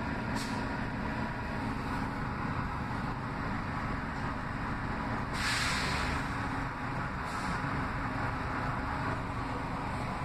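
Steady low drone of an Orion VII CNG bus's engine, heard from inside the passenger cabin as the bus stands at a light. A short air-brake hiss comes about five and a half seconds in.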